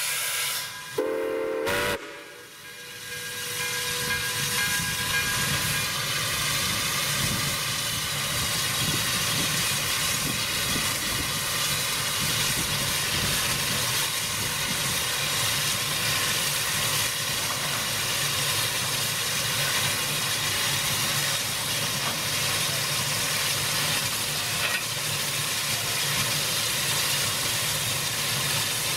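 Steam hissing steadily from a standing Baldwin 4-6-2 Pacific steam locomotive, Santa Fe #3415.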